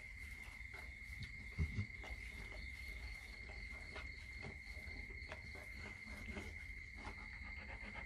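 Rottweiler mother licking her newborn puppies: soft, irregular wet clicks, over a steady high-pitched whine. Two low thumps come about one and a half seconds in.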